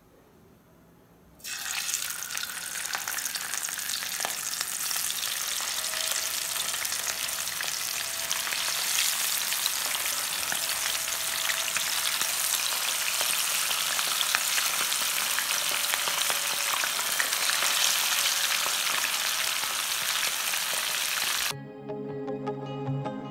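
Fish head pieces frying in hot oil in a pan: a dense, steady sizzle and crackle that starts suddenly about a second and a half in.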